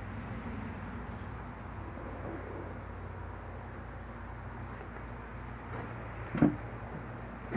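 Steady outdoor ambience of a low hum with a faint, high, evenly pulsing insect trill over it, and a single sharp thump about six seconds in.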